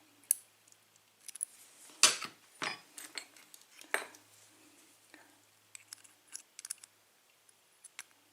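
Small metal clicks and taps of lock pins and a euro cylinder being handled, with a few louder clacks and scrapes between about two and four seconds in and a run of light ticks later.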